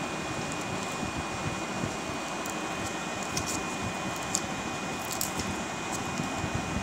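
Homemade IGBT electro-fishing inverter giving a steady electrical hum and hiss with a thin, constant high-pitched whine, broken by a few faint short clicks.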